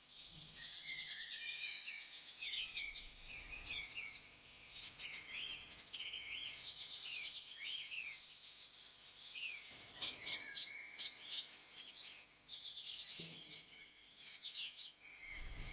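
Several birds chirping and calling at once, with quick trills and short up-and-down whistled notes overlapping without a break.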